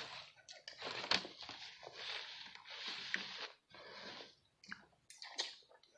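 Quiet chewing and mouth sounds, a soft noise about once a second, with a few light clicks from food being handled on the table in the second half.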